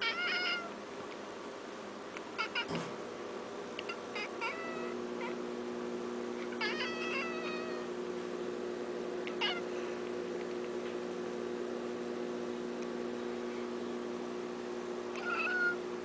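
A Manx cat giving short calls at birds outside the window, about six brief meows spaced several seconds apart. A steady low hum comes in about five seconds in and keeps going under the calls.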